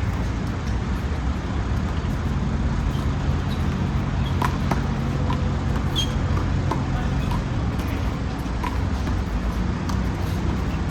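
Steady low rumble of road traffic with a constant engine hum. A few sharp smacks and short high squeaks are scattered through it.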